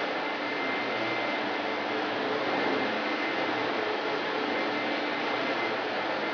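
Steady, even hiss like running air or a fan, with a faint high whine held on one pitch.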